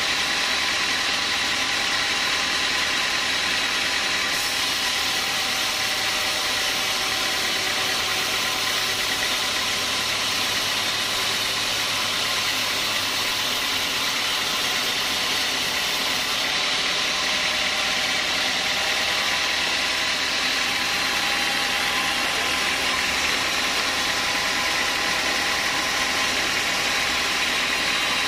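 Band sawmill slicing a small-leaf acacia log: the blade and its drive running steadily through the hardwood, a constant mechanical drone with a high whine over it.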